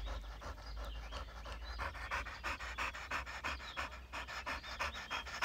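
Pit bull–type dog panting hard with its tongue out, quick and even. It is worked up from stick play and won't calm down.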